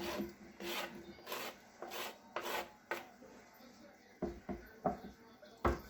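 A kitchen utensil scraping in quick repeated strokes, about two a second, as minced garlic is scraped into the soup pot, then a few dull knocks near the end.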